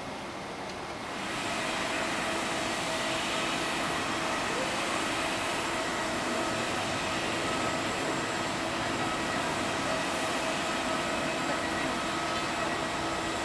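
Steady turbine whine and rush of a Boeing 777 on the apron during pushback: several high whining tones held over a broad hiss, coming in about a second in.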